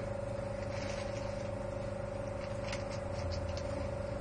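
Steady machine hum with a few light clicks about two-thirds of the way through.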